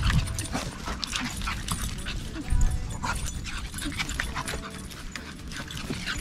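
A dog whimpering briefly a couple of times, over scuffing footsteps and small clicks of dogs on leashes moving across sandy ground.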